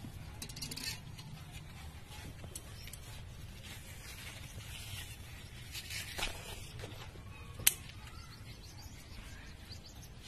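Faint rustling of white eggplant leaves and stems being parted by hand, over a steady low rumble. A single sharp click comes about three-quarters of the way through.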